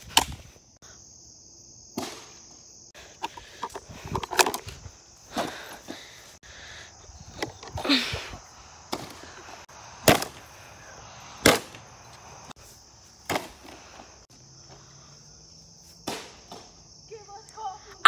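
A plastic drip coffee maker being smashed: about nine sharp cracking blows at uneven intervals, the loudest a little past the middle. Insects buzz steadily in the background.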